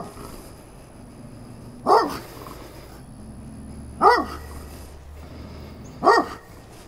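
A loose dog barking: three single barks about two seconds apart, each one rising and falling in pitch. The rider took the dog for a little aggressive.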